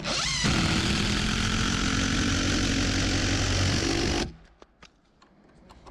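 An engine running steadily after a brief rise in revs, cutting off abruptly about four seconds in.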